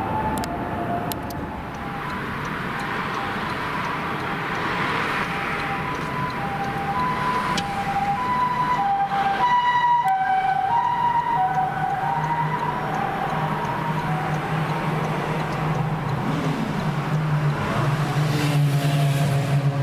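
Japanese ambulance siren sounding its two-tone hi-lo 'pee-poh' wail on an emergency run, the two notes alternating steadily. A low steady hum joins near the end.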